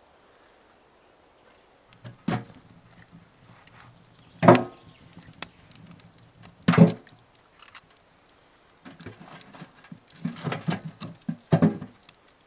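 Firewood being loaded into a small steel box wood stove: logs knocking against each other and the metal firebox. Three separate knocks a couple of seconds apart, then a quick run of clunks near the end.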